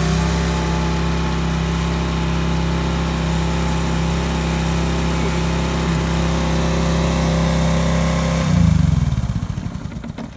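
Wagner WZ13-100SSP soundproofed engine pressure washer running steadily under the hiss of its high-pressure spray. About eight and a half seconds in the engine is shut off and runs down, its beats slowing and fading to a stop.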